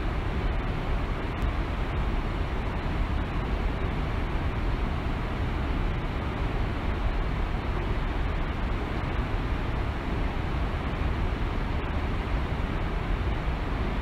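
Waterfall: a steady, unchanging rush of falling water with a deep rumble underneath.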